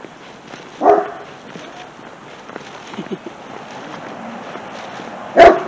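Dog barking: a single bark about a second in, then two quick, louder barks right at the end.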